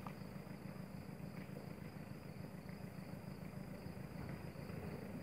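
Steady low background hum with a thin, steady high-pitched whine above it and a few faint soft ticks.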